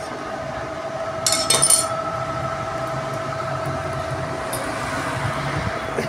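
Metal parts of a two-wheeler starter motor clinking together as it is handled and taken apart by hand, a quick cluster of clinks about a second and a half in, over a steady background hum.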